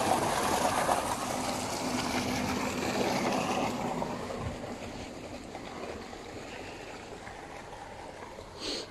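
Water gushing from a solar-powered tubewell's discharge pipe and splashing into a concrete channel, growing steadily fainter. A short sharp noise sounds near the end.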